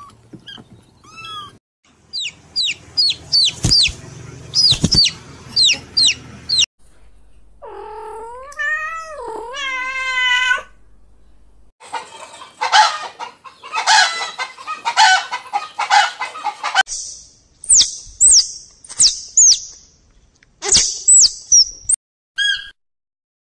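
Calls of several different animals in quick succession. Near the start come faint meows. Then come repeated short falling calls, a long cry that rises and falls in pitch, a noisy stretch of clucking, and finally high, short falling peeps.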